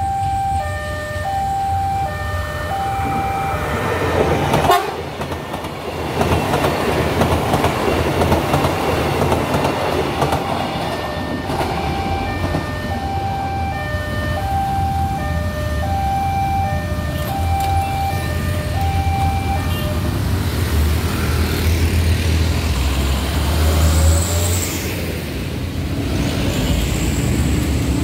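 Level-crossing warning bell chiming in an alternating two-note pattern while a train horn sounds briefly about four seconds in and a train rumbles past on the rails. The bell stops about twenty seconds in, and motorcycle and bus engines take over as traffic moves across the tracks.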